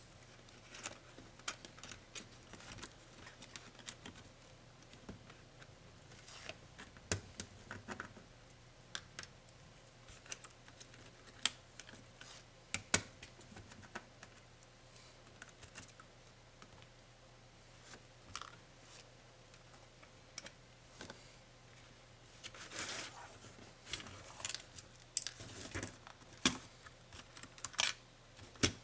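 Irregular clicks, taps and light scrapes of small tools and plastic and metal laptop parts being handled while a Lenovo ThinkPad Yoga 260 is taken apart. The clicks come thicker near the end, over a faint steady hum.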